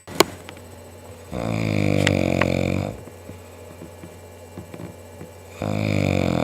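A man snoring: two long, loud, pitched snores several seconds apart, with a sharp click just at the start.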